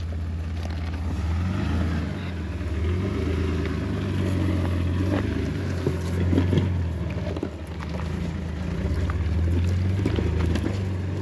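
Jeep Wrangler engine running low and steady as it drives off-road, with a few knocks and rattles on top.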